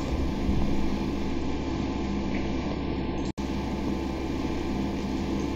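Steady droning hum and hiss of background machine or electrical noise, with a stack of steady low tones; it cuts out for an instant a little over three seconds in.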